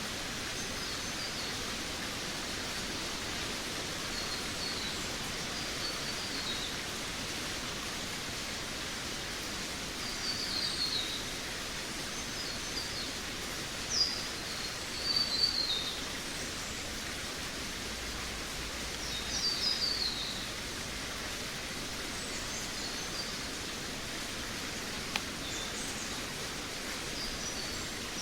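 Forest birds singing: short, high, chirping phrases come and go over a steady background hiss, with the loudest bursts of song in the middle. A single sharp tick sounds about three-quarters of the way through.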